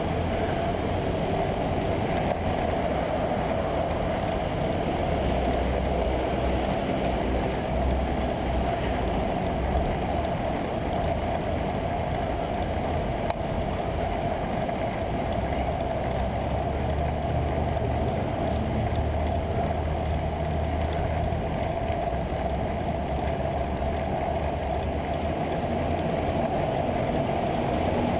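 Steady, muffled rumble of wind and road noise on a bike-mounted GoPro Hero 2 in its housing while riding, with traffic blended in.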